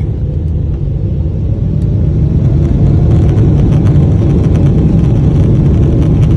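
Boeing 777-300ER's GE90 engines and takeoff roll heard from inside the cabin: a loud low rumble that grows louder about two seconds in and stays there.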